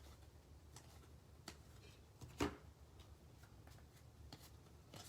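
Faint handling of baseball trading cards, with soft scattered clicks of cards sliding and tapping and one sharper tap about two and a half seconds in, over a low room hum.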